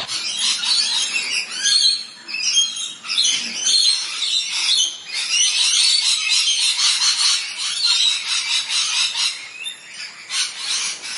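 Small songbirds chirping and twittering, many short high calls overlapping without a break.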